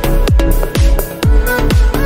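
Electronic dance music with a steady kick-drum beat, about two and a half beats a second, and sustained synth notes.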